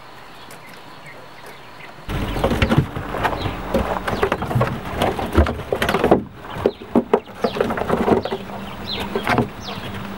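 Quail in a hutch with wood-shaving bedding: rustling and clicking start abruptly about two seconds in, over a steady low hum. Short falling chirps come near the end.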